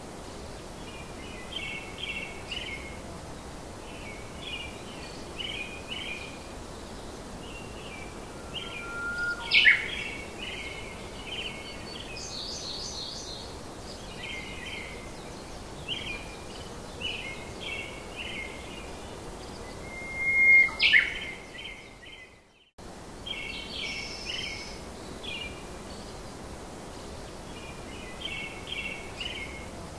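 Small birds chirping in short repeated bursts over a steady hiss, with two louder calls about 10 and 21 seconds in; the sound cuts out briefly about 22 seconds in.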